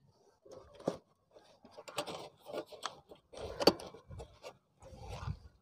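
Rexine cover being pulled and worked over the foam and rusted steel base of a Honda CD-70 motorcycle seat: irregular rubbing and scraping, with a couple of sharp clicks, the loudest about three and a half seconds in.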